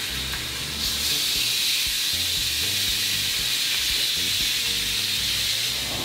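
Ribeye steak sizzling steadily on a hot cast-iron grill pan, just turned over to sear its second side, with music playing underneath.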